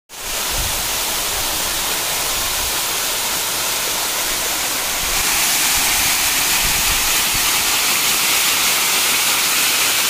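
A waterfall cascading over rock ledges: a steady rush of falling water that steps up louder and hissier about halfway through.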